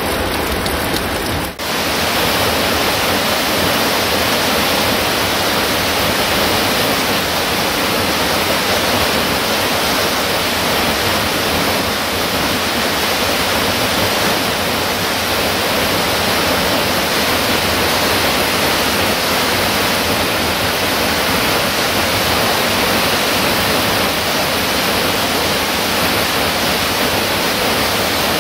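Mountain waterfall and stream rushing steadily, with a brief drop about a second and a half in.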